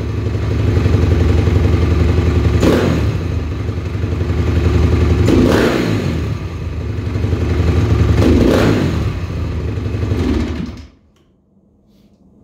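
2007 Honda CRF250R's 250 cc four-stroke single idling, snapped sharply open three times, about every three seconds, falling back to idle after each blip, then stopping about 11 seconds in. The quick throttle snaps from idle test for the carburettor's off-idle bog, after the accelerator-pump timing was adjusted.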